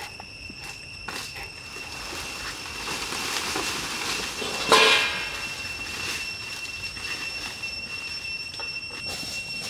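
Steady high-pitched insect drone in forest. A swell of noise builds and peaks in a short, loud call about five seconds in.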